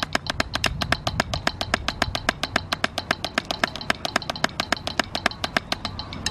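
Wooden drumsticks striking a drum practice pad in steady, even strokes, about seven a second (sixteenth notes at 110 BPM), stopping shortly before the end.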